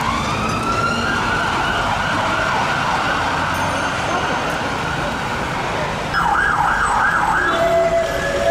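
Emergency vehicle siren wailing in slow rising and falling sweeps, switching to a fast yelp about six seconds in, over traffic noise. Near the end a steady horn note sounds.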